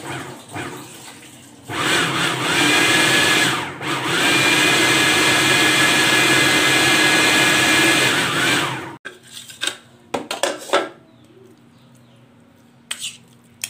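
Anex electric food chopper running twice, a short burst and then about five seconds, its motor whine rising as it spins up and falling as it stops while it chops minced beef, onion and herbs. A few plastic clicks and knocks follow as the bowl is handled.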